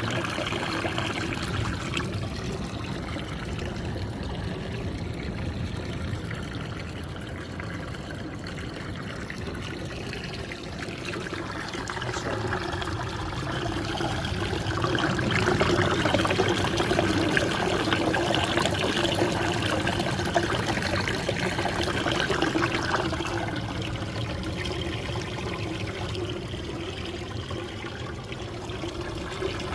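Running water pouring and trickling steadily, a small stream flowing toward the sea; it grows louder for a while in the middle.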